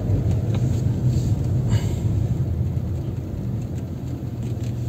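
Car engine running with a steady low rumble, heard from inside the cabin while the car creeps forward in slow traffic.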